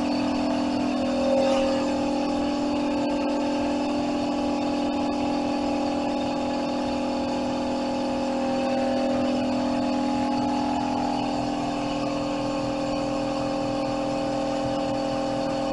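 A steady motor drone with a constant hum and a few steady higher tones, unchanging throughout.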